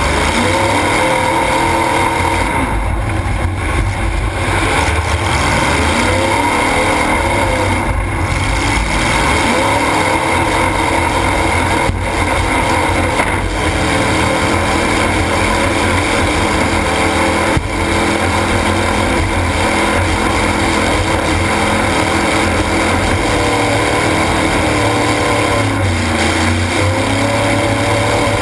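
Demolition derby car's engine running hard and revving up and down, heard from inside the car, with a few sharp knocks partway through.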